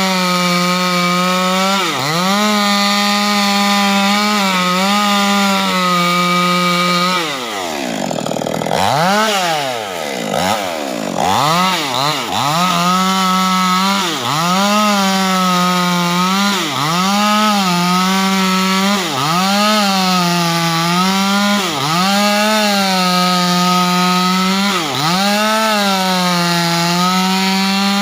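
Proquip mini chainsaw running at high revs while ripping a large timber beam lengthwise, its pitch dipping briefly every second or two as the chain loads in the cut. About seven seconds in the revs sag sharply, then climb back up about four seconds later.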